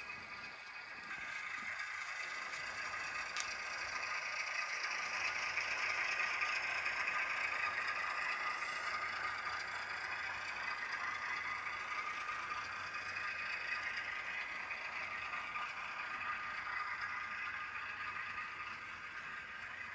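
Model locomotive's sound decoder playing a British Rail Class 08 diesel shunter engine sound through its small speaker, with the model's running gear clattering on the track. The engine sound swells over the first several seconds, then holds steady.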